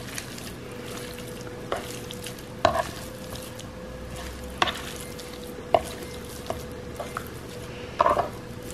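A utensil stirring and mixing seasoned raw beef, with a handful of short clinks and knocks against the dish over a steady faint hum.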